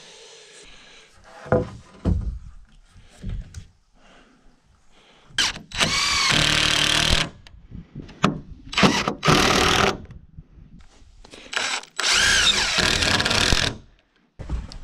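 Power drill driving screws into a doubled 2x4 wall top plate, in three runs of a second or two each, the motor pitch rising and falling with each screw. A few knocks come first, near the start.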